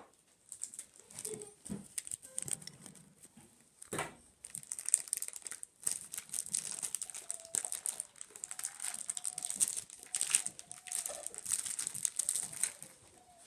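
Toy packaging being crinkled and torn open by hand, a long run of irregular sharp crackles and rustles.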